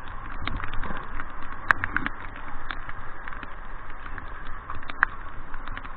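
Raindrops tapping irregularly on the camera housing over a steady rush of river water.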